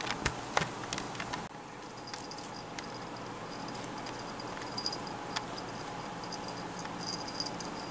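Light taps and rustles of a young Bengal kitten pouncing and scrabbling on a blanket at a feather wand toy. There are a few sharp clicks in the first second and a half, then only scattered faint ticks over steady room noise.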